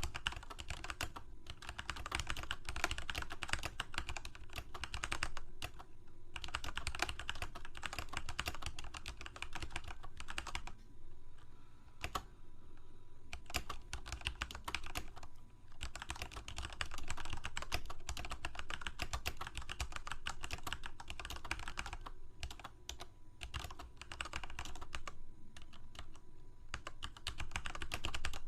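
Typing on a computer keyboard: fast runs of keystroke clicks, broken by short pauses about 11 seconds in and again around 15 and 22 seconds.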